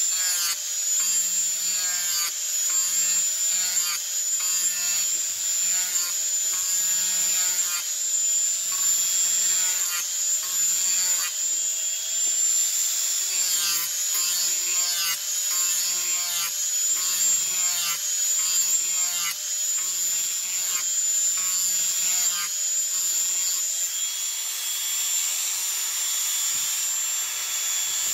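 Small angle grinder with a sanding disc running with a steady high whine while it grinds the edge of a piece of fiber cement siding, in repeated strokes about once a second. The strokes stop near the end while the grinder keeps running.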